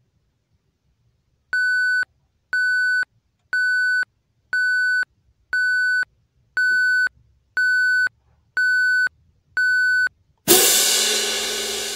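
Countdown timer sound effect: nine short, identical electronic beeps, one a second. Then a sudden loud crash that fades away, marking time up.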